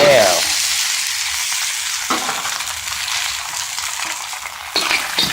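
Crabs frying in hot oil in a wok, a loud steady sizzle from crabs just tossed in. A short knock about two seconds in and more clatter near the end from stirring.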